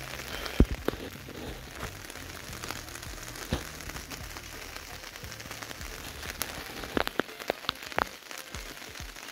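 Steady light rain falling, with scattered sharp taps and clicks and a quick run of them near the end.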